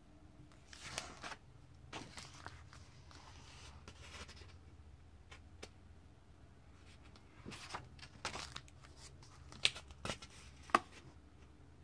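Pages of a comic book being turned by hand: several short papery swishes and crinkles, then two sharp ticks about a second apart near the end, over a low steady hum.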